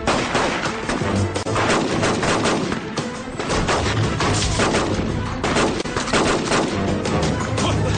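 Dense film gunfire from pistols and rifles, shot after shot in quick succession, over dramatic background music.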